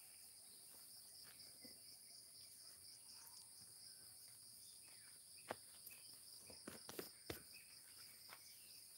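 Faint, steady high-pitched insect trilling in two even tones, with a few sharp clicks or taps a little past the middle.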